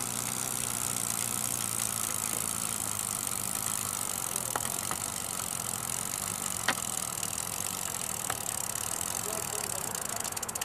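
Steady hiss of steam from a small model steam locomotive with a double-acting oscillating-cylinder engine, with a few light clicks.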